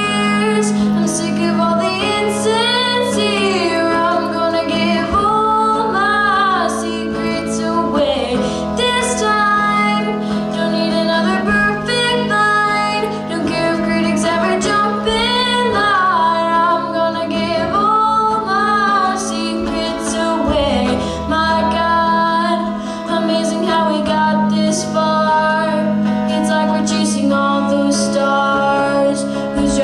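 A girl singing a song into a microphone, accompanying herself on an electric guitar.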